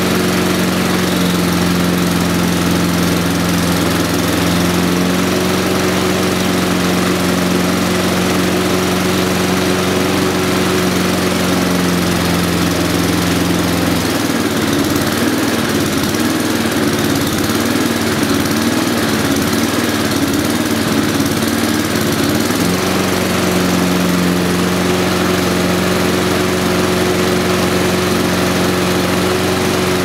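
Honda Izy lawnmower's single-cylinder petrol engine running steadily as it warms up after starting. About halfway through the revs drop and the engine hunts up and down for several seconds, then steadies again near the end. The uneven running at low revs is a sign that the carburettor could want cleaning out.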